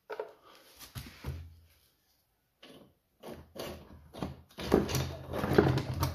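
Lawnmower carburetor being worked off its mounting by hand, still hooked to its throttle linkage rods: irregular metal clicks, knocks and rattles, busier in the second half.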